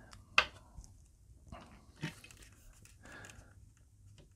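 Handling noises as a plastic toy Dalek and a glue tube are picked up and moved about: a few sharp plastic clicks, the loudest about half a second in and another about two seconds in, with short rustles between them.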